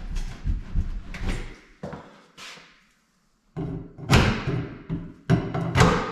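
Pry bar being wedged in and levered along the top of a heavy wood wall cabinet to work it loose from the wall: an irregular run of scrapes, knocks and thuds. It cuts out briefly about halfway, and the loudest knocks come in the last two seconds.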